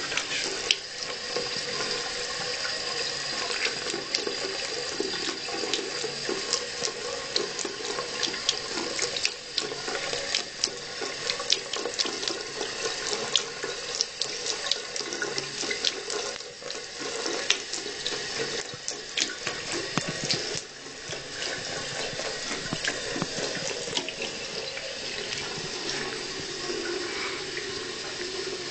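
Water tap running steadily into a bathroom sink, the stream splashing and clicking irregularly as a cat laps from it.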